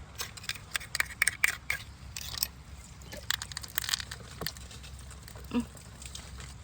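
Hard clicking and crunching of freshwater pearl mussel shell being worked, in quick irregular runs of sharp clicks with short scrapes, busiest in the first half.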